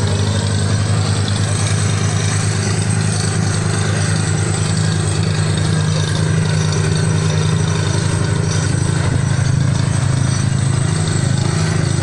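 An engine idling steadily, a low hum with a fast, even pulse.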